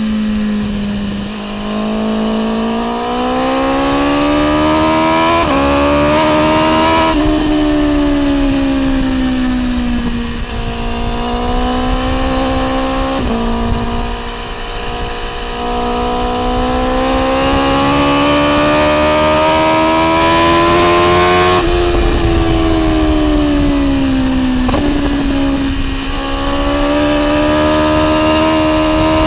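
BMW S1000R's inline-four engine running through an Akrapovic exhaust while riding. Its pitch climbs under throttle, drops abruptly at a few gear changes, and eases down in between.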